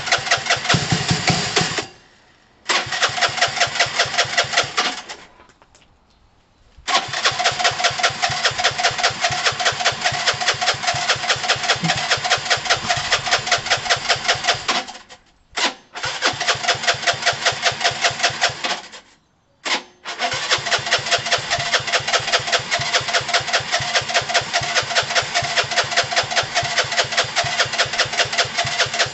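Electric starter cranking the Gilera DNA 125's single-cylinder four-stroke engine in five long bursts with short pauses between them; the engine turns over in a fast, even chug but never catches. The owner puts the failure to start down to a carburettor that almost definitely needs a good clean out.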